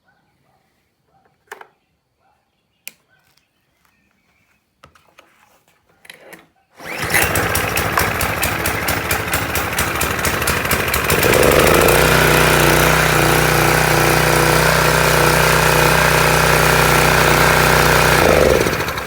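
A few faint clicks and knocks, then the small four-stroke petrol engine of a Parkside pressure washer, freshly filled with SAE 30 oil, starts suddenly about seven seconds in and runs, settling louder and steadier about four seconds later before dying away at the very end.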